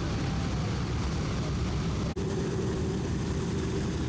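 Radial piston engines of WWII warbirds at taxi power, a steady propeller drone: first the PV-2 Harpoon's twin Pratt & Whitney R-2800 radials, then, after a brief cut about halfway, the B-17 Flying Fortress's Wright R-1820 Cyclone radials, with a steady hum in the drone.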